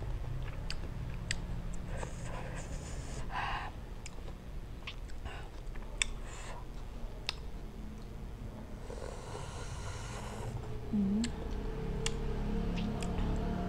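Close-up mouth sounds of eating: wet lip smacks and sucking on a sour lime slice, with scattered sharp clicks, a couple of breathy hisses of air drawn in at the sourness and a short hum about eleven seconds in, over a steady low hum.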